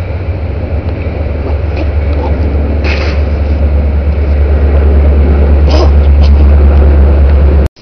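Loud, steady low rumble that builds over the first several seconds, holds, and cuts off abruptly near the end.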